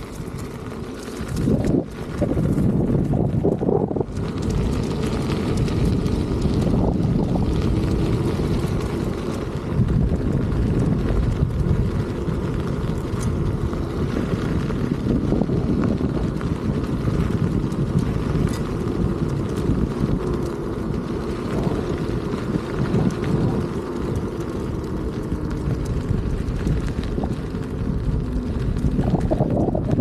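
Wind buffeting the camera microphone from riding an electric unicycle, a loud, steady low rumble with gusty swells.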